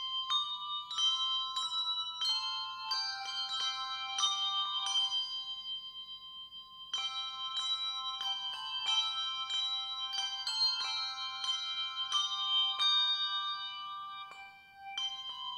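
Handbell choir playing a piece: struck handbells ringing on in overlapping chords. About five seconds in the strikes stop and the notes are left to ring and fade, and the ringing resumes about two seconds later.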